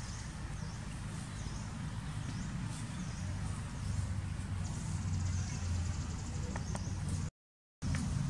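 Steady low drone like a distant engine, getting louder about three seconds in, with short high chirps repeating above it. The sound cuts out completely for about half a second near the end.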